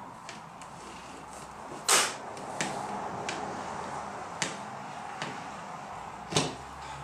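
Wooden knocks and clunks from boards being handled on a table saw table against the fence: a loud one about two seconds in, another loud one near the end, and fainter ones between, over a steady background hiss.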